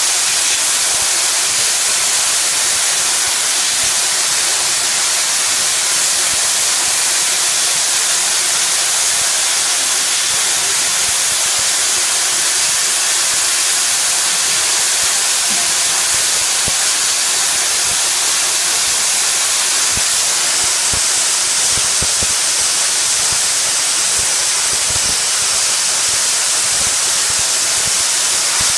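Saturated steam blowing off from a gasification boiler at about 125 psi through a half-inch valve and hose: a loud, steady hiss with no change in level.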